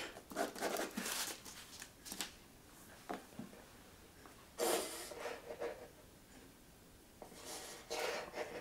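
Pen scratching on paper and clothing rubbing against a tabletop, in a series of short bursts, the loudest a little past halfway.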